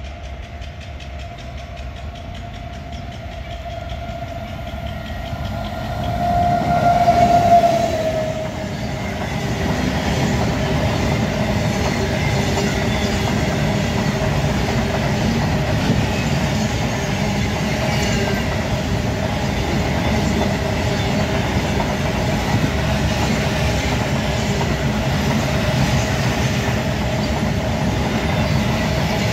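Freight train approaching and passing at speed. Its electric locomotive sounds a horn for about two seconds as it passes, the pitch dropping at the end. Then comes a steady rumble and clickety-clack of covered freight wagons rolling past.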